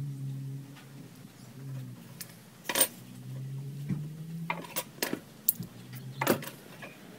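A handful of sharp metallic clinks as a steel rule and small turned steel parts are handled and set down on a wooden workbench, over a low steady hum.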